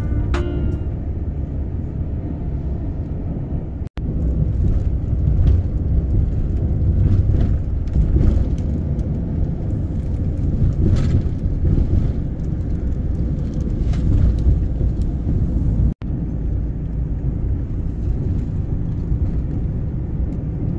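Steady low rumble of road and engine noise inside a moving road vehicle, with scattered small knocks and rattles. The sound drops out for an instant twice, about four seconds in and again near sixteen seconds.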